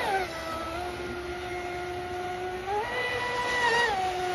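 Traxxas Spartan RC speedboat's brushless electric motor whining at speed. Its pitch drops at the start, holds steady, rises about three seconds in, then drops again near the end.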